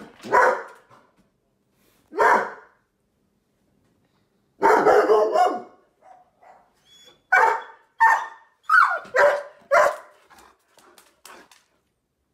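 A sheepadoodle barking out of a window, alert barking at something outside. Single barks come a couple of seconds apart, then a longer run of barks about five seconds in, then a quicker string of about five barks towards the end.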